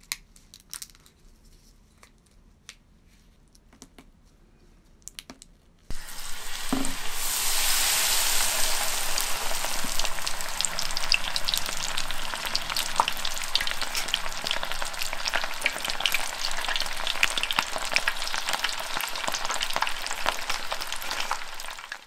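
Tempura deep-frying in hot oil: a dense, steady crackle and sizzle that starts abruptly about six seconds in, after a few quiet seconds of faint soft clicks.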